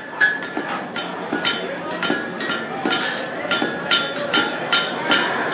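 Hand hammer striking hot iron on an anvil, the anvil ringing with each blow, about three strikes a second.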